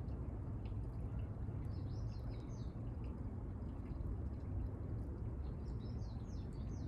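Small birds twittering outdoors in two short runs of quick chirps, about two seconds in and again near the end, over a steady low background rumble.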